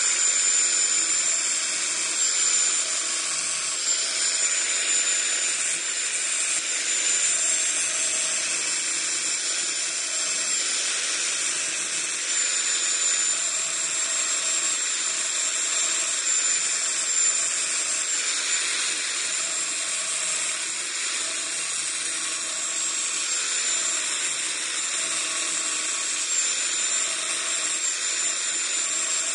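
Electric grinder running steadily with a high whine and a continuous grinding hiss, shaping a steel bolt into a woodworking drill bit.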